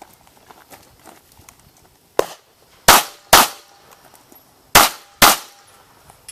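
Ruger SR9 9mm pistol firing two double-taps, the shots in each pair about half a second apart, with about a second and a half between the pairs. A quieter sharp crack comes just before the first pair.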